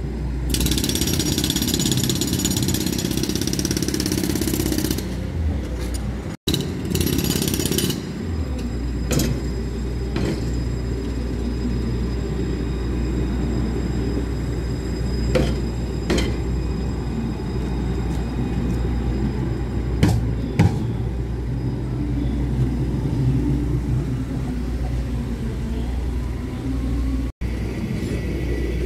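Tram running: a steady low rumble with a few sharp clicks, and bursts of hiss in the first several seconds. The sound cuts out briefly twice.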